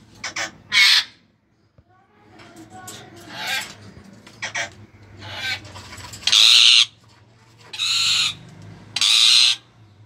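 Caged parakeet calling: a run of short chattering calls, then three loud, harsh screeches in the last four seconds.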